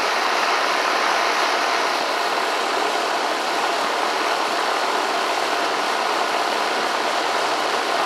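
Outdoor air conditioner condenser unit running, its top-mounted fan blowing a steady, even rush of air.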